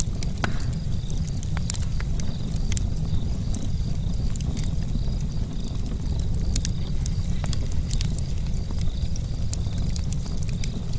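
Campfire charcoal crackling, with frequent sharp, irregular pops over a steady low rumble.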